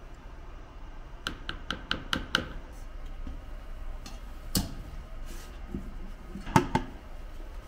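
A metal spoon clinks about six times in quick succession against a plastic jug of thickener solution. Then a stainless-steel mixer bowl is handled: one knock, and a louder ringing double knock near the end.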